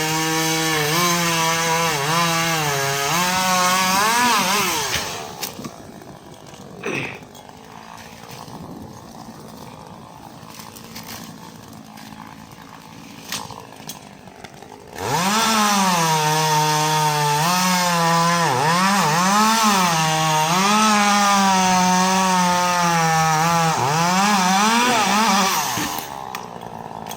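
Chainsaw running at high revs and cutting, its pitch dipping and recovering as the chain loads in the wood. It runs in two spells with a quieter gap of about ten seconds between them.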